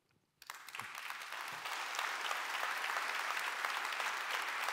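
Audience applauding, starting about half a second in and quickly building to steady clapping.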